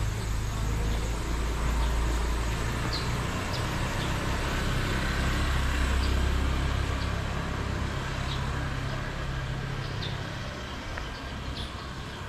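A road vehicle's engine runs close by with a low, steady hum that eases off near the end, over a steady background hiss. A few faint bird chirps sound high above it.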